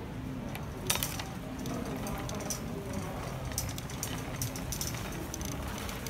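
Busy shop ambience with indistinct background voices, and a wire shopping cart clinking and rattling as it is pushed. A sharp metallic clack comes about a second in.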